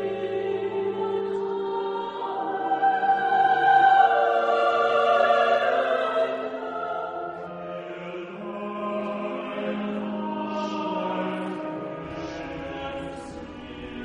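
Slow music of several voices singing long held notes in an operatic, choral style, swelling louder a few seconds in and then easing back.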